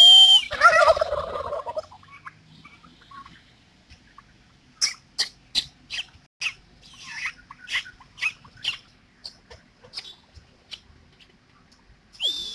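Male turkey gobbling, a loud rattling call of about two seconds at the start, with another gobble beginning near the end. In between comes a run of about ten short, sharp clicks.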